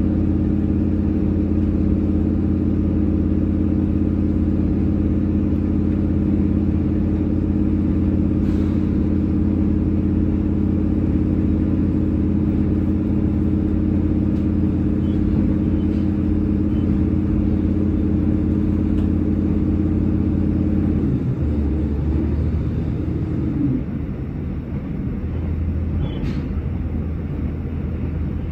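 A train running, heard from inside the carriage: a steady low mechanical drone with rolling noise. About three quarters of the way through, the drone changes and drops a little in loudness, and a few faint clicks come through.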